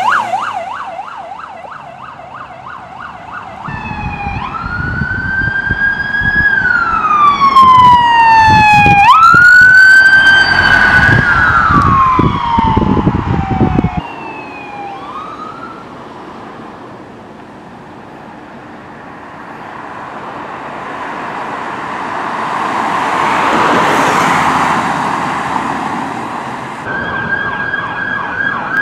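Police car electronic sirens over several clips. A fast yelp fades out, then a loud wail rises and falls twice over engine rumble. After that comes a quieter stretch of a vehicle rushing past, and a fast yelp starts again near the end.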